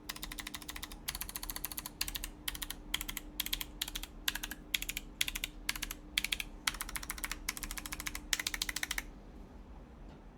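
Typing on a mechanical keyboard with clicky Kailh Box White v2 switches in a top-mount aluminium plate under GMK Space Cadet keycaps: rapid crisp clicks in quick bursts. The typing stops about nine seconds in.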